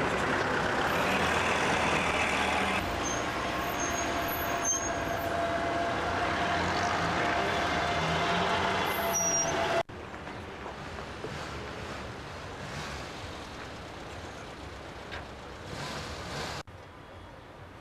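Diesel city bus running as it pulls past close by, with a steady whine over the engine noise. About ten seconds in the sound cuts abruptly to quieter, steady street traffic.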